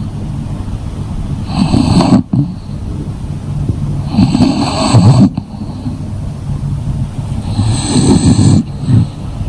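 Sleeping English bulldog snoring: three loud snores about three seconds apart, each cutting off sharply, with quieter breathing between.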